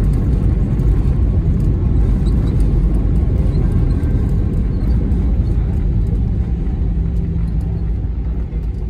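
Airbus A320 cabin noise as the airliner rolls on the ground after landing: a loud, steady low rumble from the engines and the wheels on the pavement, easing slightly near the end.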